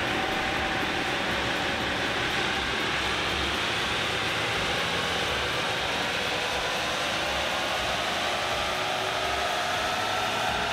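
Toyota Hilux 3.0 four-cylinder turbodiesel under load on a chassis dyno, the engine and the tyres on the rollers making a steady rushing noise that rises slowly in pitch as the revs climb.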